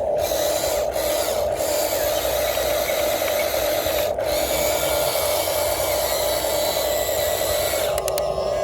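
Small electric motors and gears of a radio-controlled Huina construction model running, a steady buzzing whine whose higher hiss cuts out briefly a few times.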